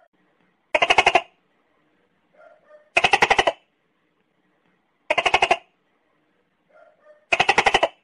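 Tokay gecko calling: four harsh, rattling half-second notes about two seconds apart, each made of rapid pulses, with faint short notes in between.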